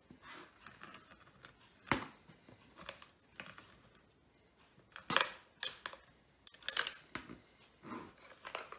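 Wheel-type pipe cutter being turned around an aluminium coolant pipe: a string of irregular sharp scrapes and clicks as the cutting wheel scores the tube and the cutter is worked round, the loudest about two seconds in and about five seconds in.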